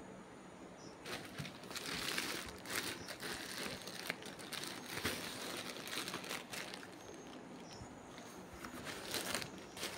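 Plastic courier packaging crinkling and rustling as a parcel is handled and opened by hand, in irregular bursts that are heaviest from about one to three seconds in.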